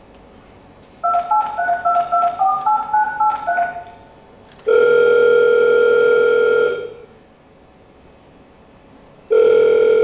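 Telephone keypad tones: a quick run of about a dozen dialing beeps at changing pitches, then the steady ringback tone of a call ringing out, sounding twice for about two seconds each, the second beginning near the end.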